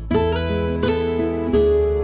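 Background music: an acoustic guitar picking single notes and chords at a slow pace, each note ringing on.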